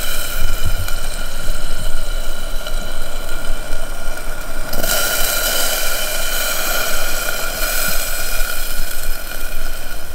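Bacon-wrapped steak sizzling inside a covered stainless steel skillet set on hot coals with coals heaped on the lid: a steady hiss that grows brighter about five seconds in.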